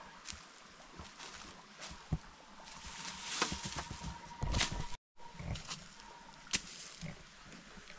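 Leaves and branches rustling, with twigs snapping and wood knocking, as saplings and poles are handled and set into a shelter frame. The rustling is loudest around the middle, ending in a few low thuds, and the sound drops out for an instant about five seconds in.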